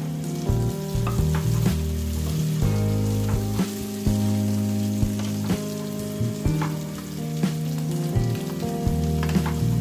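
Sliced onions and curry leaves frying in oil in a wok, sizzling with scattered crackles, over background music.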